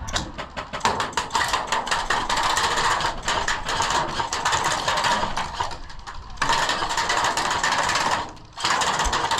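Full-auto airsoft gunfire: a rapid, continuous run of clicks in long bursts, with two short breaks about six and eight and a half seconds in.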